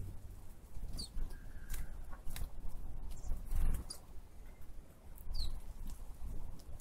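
Short scratchy strokes of an oil-paint brush dabbing on canvas, with brief high falling bird chirps, one about a second in and another later.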